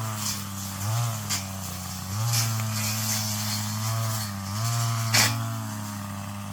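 Brush cutter engine running at high speed, its pitch dipping and recovering several times. Two sharp knocks cut through it, the louder about five seconds in.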